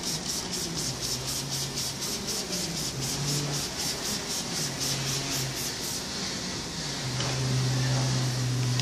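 Hand trigger spray bottle squirting soapy water in quick, even pumps, about five a second, stopping about six seconds in. A low steady hum grows near the end.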